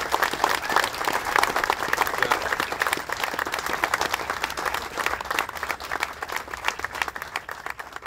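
Crowd applauding with dense clapping, fading out over the last few seconds.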